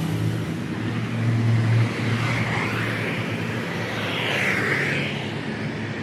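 Engine noise: a low steady hum, loudest in the first two seconds, then a broader rushing noise with a whine that rises and falls.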